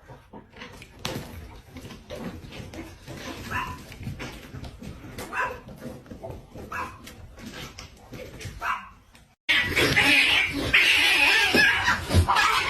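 A small pet's short, high calls, about four in a row a second or two apart, then a sudden switch to a louder, busier clip about nine and a half seconds in.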